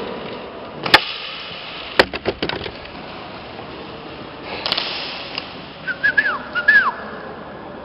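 Airsoft gunfire echoing in a large hall: a single sharp snap about a second in, another at two seconds followed at once by a quick burst, and a flurry of snaps around five seconds. Near the end come four short whistled chirps, each falling in pitch.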